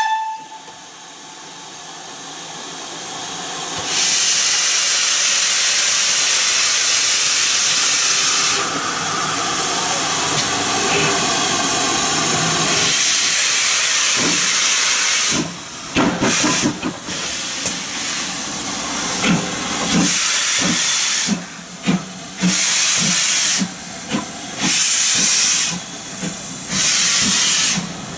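GWR 2800 class 2-8-0 steam locomotive No. 2857 pulling away from the station. Steam hisses loudly and steadily for several seconds, then comes in regular bursts about a second apart, with short low knocks among them as the engine gets under way.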